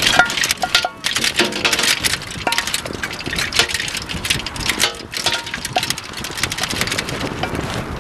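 Wind-chime-like sculpture of white cups hung on strings, clattering and clicking against each other as they swing in gusty wind, with a few brief ringing tones among the clicks. Wind rushes over the microphone throughout.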